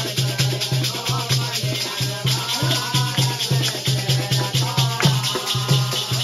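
Live Holi phag folk song: a group of men singing together over a drum keeping a steady beat of about three to four strokes a second, with sharp rattling percussion on the beat.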